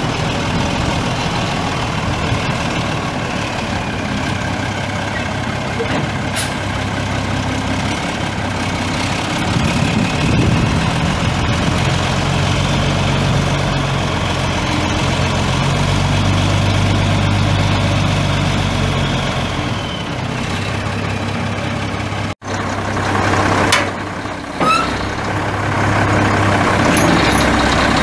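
Cummins 8.3-litre inline-six diesel engine of a 1994 Ford LN8000 dump truck running steadily, louder for a stretch in the middle. About three-quarters of the way through, the sound cuts out for an instant, then comes a few sharp clicks and knocks over the running engine.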